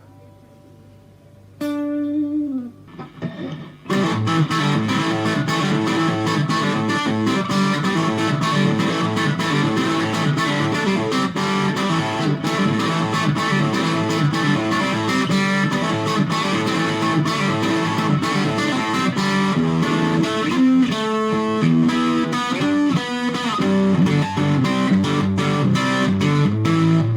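Fujigen (FGN) Stratocaster electric guitar played straight into a Fender Studio Valve SVH valve amplifier, with no pedals in between. After a quiet second and a half, a single note sounds and is bent downward. From about four seconds in, the guitar plays a fast, continuous run of picked notes.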